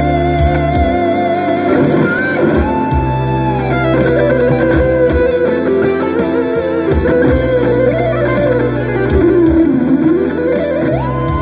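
Electric guitar playing an improvised lead, with long sustained notes, string bends and vibrato, over a slow rock backing track with bass and drums.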